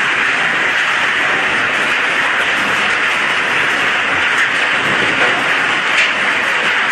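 Scrap steel crusher running and grinding scrap metal: a loud, steady grinding noise with an occasional sharper clank, one about six seconds in.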